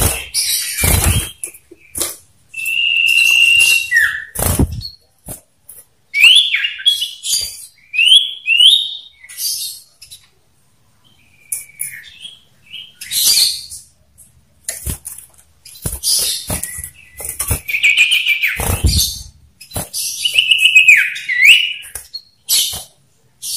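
Male common ioras calling: a long held whistle, then quick rising and falling whistled notes mixed with harsh chattering, the bird's challenge song. A few thumps from the caged bird hopping against perch and bars.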